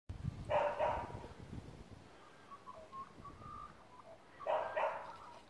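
A dog barking: a quick double bark, then another about four seconds later.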